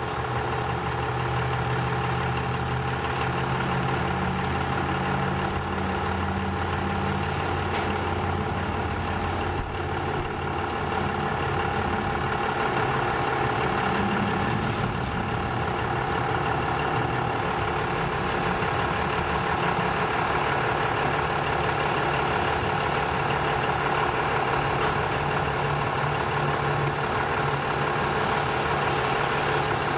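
An engine idling steadily. Its low hum weakens about ten seconds in and strengthens again near the end.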